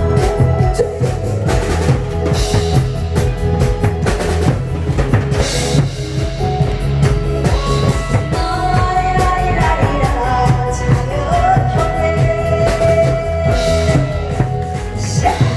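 Drum kit played live to a steady beat over backing music with a held melody line.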